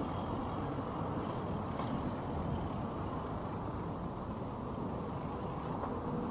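Steady low rumble of city street traffic, with no distinct engine notes or impacts standing out.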